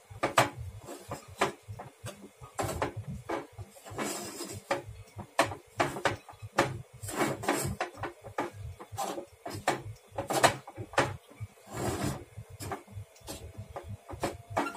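Metal spoon stirring rice flour into hot water in a steel pot, scraping and knocking against the pot in many quick, irregular strokes. The flour is being worked fast to keep lumps from forming as the ukad dough for modak comes together.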